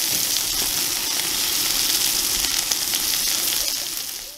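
Hamburger patties sizzling on a hot steel flat-top propane griddle, a steady frying hiss that fades out near the end.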